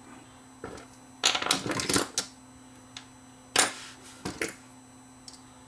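Clicks, rattles and knocks of a security camera's plastic housing and internal parts being handled and fitted back together by hand. The loudest knock comes a little past halfway.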